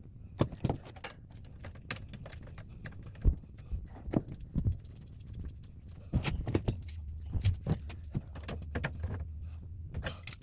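Irregular clicks, taps and clatter of tools and materials being handled during pipe work, over a low steady hum.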